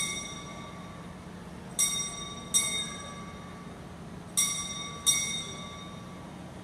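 Altar bell struck in pairs of strokes about three-quarters of a second apart, twice, each stroke ringing clear and fading away: the bell rung at the elevation of the chalice during the consecration.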